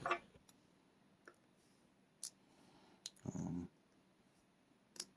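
Faint, scattered small clicks of tweezers and tiny metal lock parts as driver pins and springs are pulled from a pin-tumbler lock cylinder's housing, with a short dull rustle a little past the middle.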